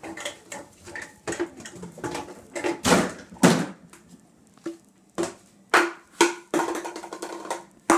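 Dishes and cups clattering and clinking as they are lifted out of a dishwasher and set down: a string of about a dozen sharp knocks at uneven intervals, the loudest about three and a half seconds in.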